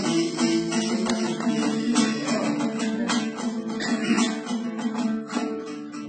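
Kazakh dombra strummed in an instrumental break between sung verses: a repeated strumming pattern over steady ringing notes, dipping in loudness just before the end.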